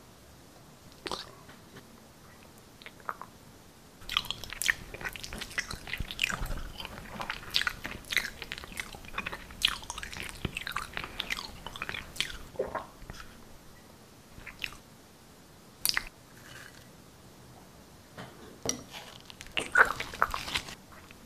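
Wet, sticky chewing and mouth smacking in irregular bursts, busiest from about four seconds in until about thirteen, with a louder cluster near the end.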